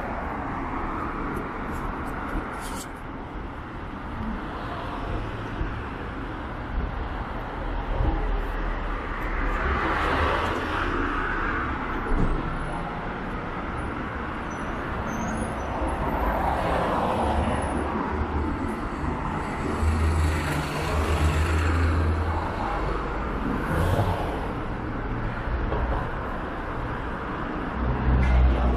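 City street ambience with road traffic, several vehicles passing, their sound swelling and fading a few times over a steady low rumble.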